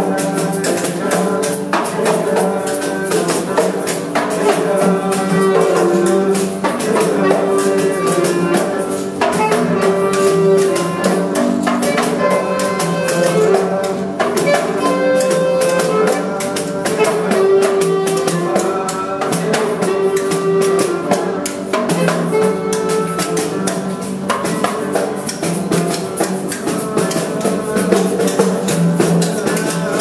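Acoustic music: a fast, steady shaken-percussion rhythm under a melody of held notes.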